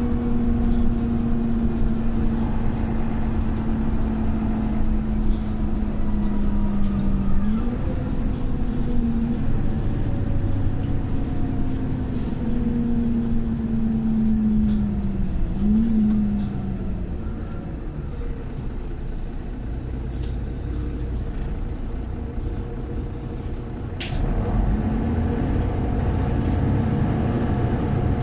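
Mercedes-Benz Citaro O530 bus's diesel engine heard from on board. The engine note falls steadily and twice jumps back up with a gear change, about 7 and 15 seconds in, then goes quieter. There is a short air hiss about 12 seconds in and a sharp air release about 24 seconds in, after which the engine note rises again as the bus pulls away.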